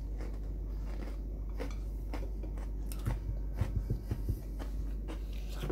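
Biting into and chewing an original Oreo cookie: scattered crisp clicks of the wafer, with a cluster of soft low bumps about three to four and a half seconds in, over a steady low hum.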